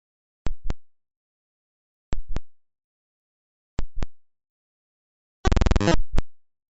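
Space sound recording converted to audio: pairs of sharp clicks repeating about every second and a half over dead silence, and a short, rapid buzzing run of pulses about five and a half seconds in.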